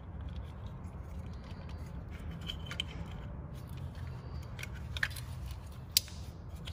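Plastic ignition coil packs being handled and set into their spark plug wells on a VW 2.5 five-cylinder engine: light clicks and rattles, with a sharper click about five and six seconds in. A low steady hum runs underneath.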